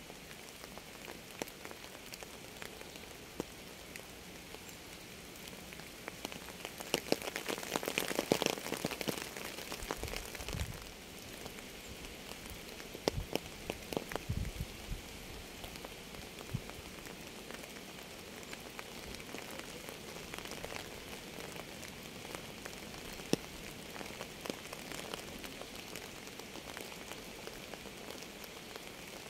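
Rain falling on a hard surface: a steady hiss with many separate drops tapping, heavier for a few seconds about seven seconds in. Two brief low thuds come a little later.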